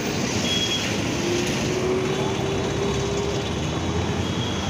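Dense city street traffic: buses running past close by, with a steady engine rumble and a faint tone that rises slowly through the middle.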